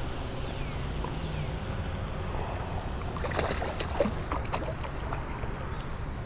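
Steady wind rumble on the microphone, with a cluster of splashes about three to four and a half seconds in as a hooked largemouth bass thrashes at the surface on a topwater popper.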